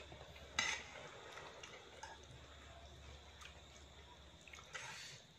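Metal fork and spoon clinking and scraping on a ceramic plate while stirring saucy noodles, with a sharp clink about half a second in and another near the end. Soft wet chewing sounds between.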